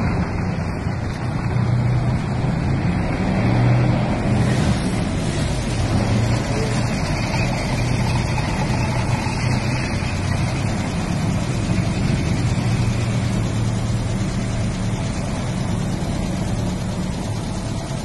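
Tracked armoured military vehicle driving past: a steady engine drone with a low hum and broad rumbling noise that holds throughout.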